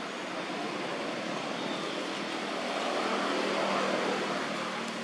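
A motor's steady hum over a broad rushing background, swelling slightly about three seconds in and easing off near the end.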